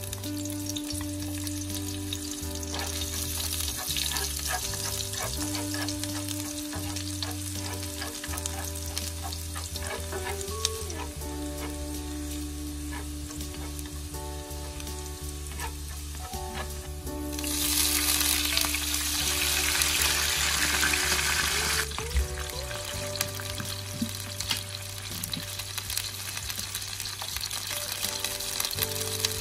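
Sliced shallots and chili frying in oil in a nonstick pan, sizzling steadily with small pops, as a wooden spatula stirs them. The sizzle swells louder for a few seconds a little past the middle, then settles back.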